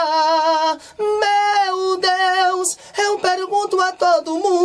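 A man singing unaccompanied in a high tenor voice, holding notes with a wavering vibrato across several short phrases with brief pauses for breath.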